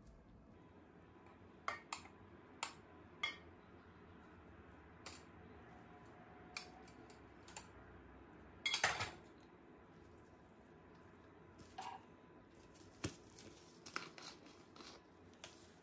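A steel spoon and metal spice box clinking and knocking against a metal cooking pot as spices are scooped and added. Scattered single clinks, with a louder clatter of metal about nine seconds in and a run of small clicks near the end.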